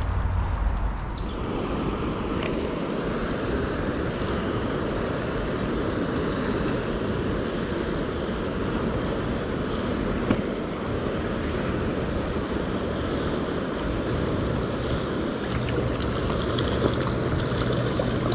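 River water rushing over a shallow stony run close to the microphone: a steady rush with a few small splashes.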